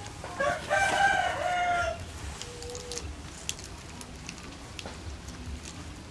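A rooster crows once, starting about half a second in and lasting about a second and a half. Faint small clicks follow.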